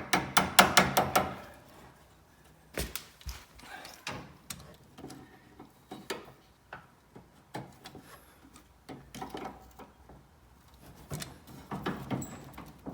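A quick run of sharp metal clicks, then scattered clicks and knocks as small steel parts are handled. A retaining clip is being fitted on a lawn tractor's front spindle shaft and washers are set on it.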